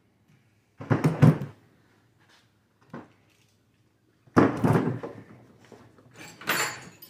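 Hand tools being set down and picked up on a workbench: a few separate clunks and clatters, with the longest about halfway through.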